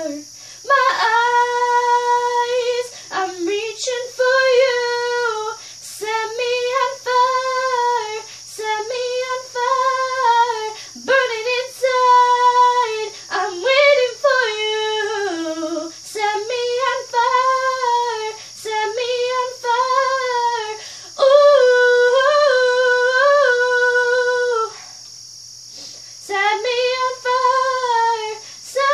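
A female voice singing unaccompanied, held melodic phrases one after another with short breaths between them and a longer pause near the end, over a faint steady hum.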